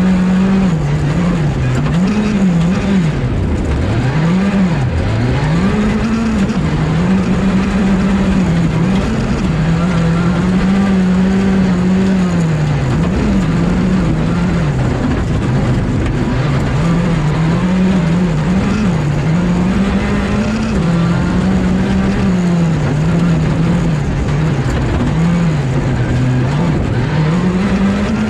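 Skoda Fabia R5 rally car's turbocharged four-cylinder engine at full stage pace, heard from onboard, its revs rising and falling again and again through gearshifts and corners.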